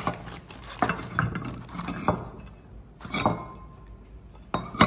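Small unglazed clay bowls clinking and knocking against one another as they are lifted out of a stack and set down: about half a dozen separate clinks, the loudest near the end.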